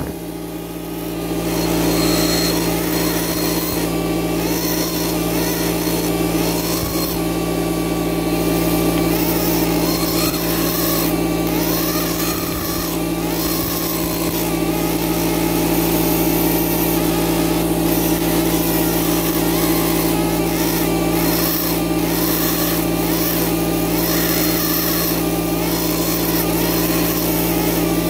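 Air scribe buzzing steadily as its tip chips chalk matrix away from an ammonite fossil, its pitch wavering a little as it bites into the stone.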